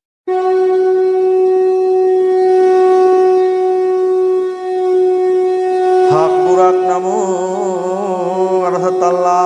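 Devotional music opening: a steady, reedy drone on one pitch, joined about six seconds in by a wavering, ornamented melodic line over it.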